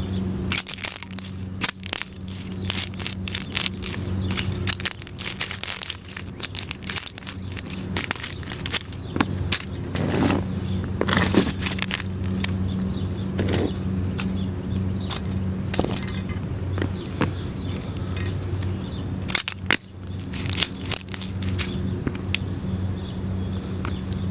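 Plastic cups cracking and crunching as they are stomped flat under work shoes, in dense runs of sharp crackles with a few pauses, over a steady low hum.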